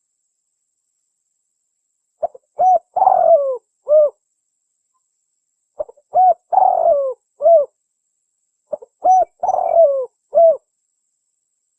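Spotted dove cooing: three phrases of about four coos each, every phrase with a longer note that falls in pitch, and pauses of about two seconds between phrases.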